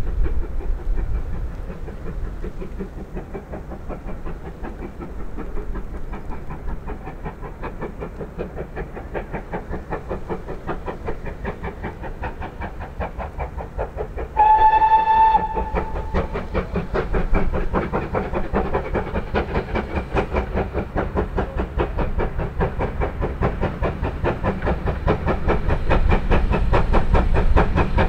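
A GWR Manor class 4-6-0 steam locomotive working hard, its exhaust beating in a rapid, even rhythm that grows louder as it approaches. About halfway through it gives one short blast on its single-note whistle.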